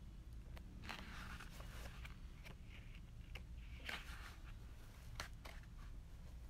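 Faint room tone: a low steady hum with scattered soft clicks and a couple of brief hissy rustles.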